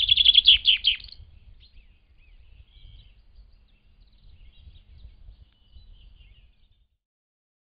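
Small songbird singing: a loud, rapid trill of high notes in the first second or so, followed by fainter, scattered chirps and short phrases.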